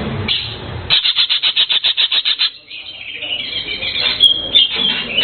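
Cucak keling bird calling: a rapid run of sharp repeated notes, about ten a second, then a busier, squealing chatter with a short whistled note near the end.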